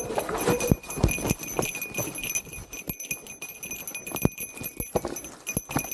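A bike rattling and clattering over a bumpy trail: a run of irregular sharp knocks and clicks, with a light jingle.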